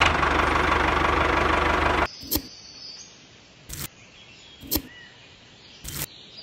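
Small electric motor of a homemade toy tractor, whirring loudly with a low buzz for about two seconds before cutting off suddenly. It is followed by a few sharp light clicks about a second apart.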